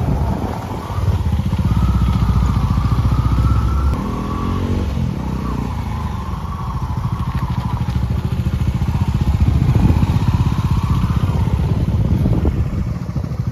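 Motorcycle engine running under way, its revs dropping and then climbing again about four to five seconds in.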